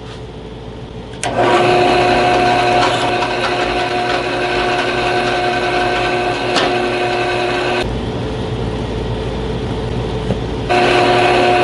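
Electric drill motor running while a number 19 bit drills a hole in a steel hole saw arbor for a tap. It starts about a second in, drops to a lower hum about eight seconds in, and picks up again near the end.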